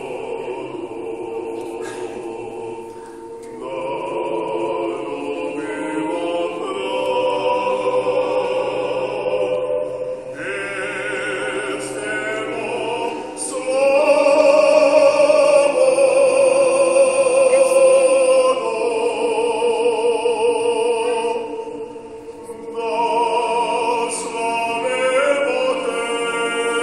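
Mixed church choir singing unaccompanied Serbian Orthodox choral music in held, layered chords. It swells loudest about halfway through and breaks off briefly a few seconds later before going on.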